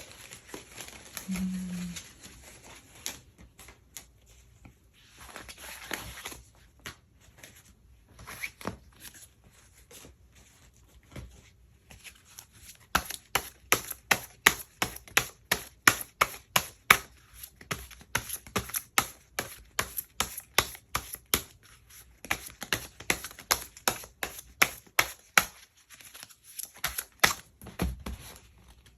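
A tarot deck being shuffled and handled: quick sharp card slaps and clicks, a few scattered at first, then several a second from about twelve seconds in until near the end.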